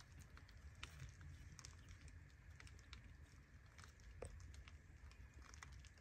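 Near silence: a faint low rumble with scattered small ticks and clicks, one a little sharper about four seconds in.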